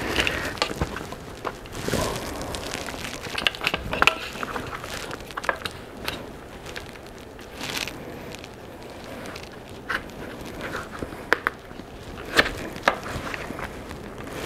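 Plastic tire levers prying and scraping a tight clincher tire bead onto a carbon road-bike rim. Irregular clicks, snaps and rubbing scrapes of lever on rim and rubber, with a few sharper snaps near the end.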